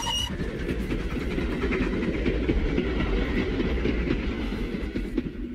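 Small electric kiddie train ride rolling along its oval track, a steady low rumble from its motor and wheels.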